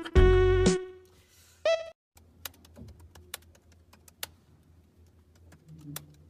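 A music track ends abruptly about a second in. After a short gap come scattered light clicks and taps over a low steady hum: the clatter of hands working at a café espresso machine and counter.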